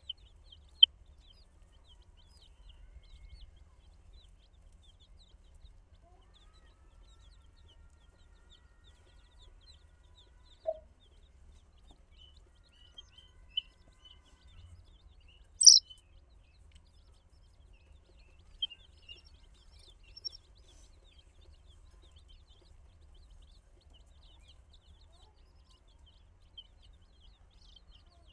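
Flock of baby chicks peeping continuously in quick, high chirps, with a few sharp louder sounds scattered through, the loudest about halfway.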